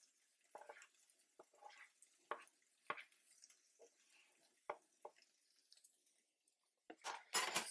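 Pieces of browned andouille sausage dropping into a stainless steel sauté pan of diced vegetables: soft, scattered taps and plops, a dozen or so, with a louder burst of noise about seven seconds in.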